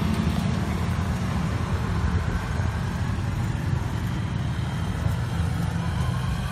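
Steady low rumble of an open-sided electric campus tram in motion, heard from on board: road and running noise without distinct events.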